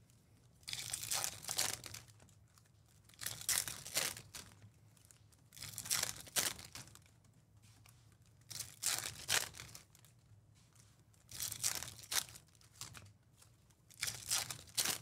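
Foil wrappers of Topps Chrome baseball card packs being ripped open one after another with a crinkling tear. There are six rips, each about a second long, roughly every two and a half seconds.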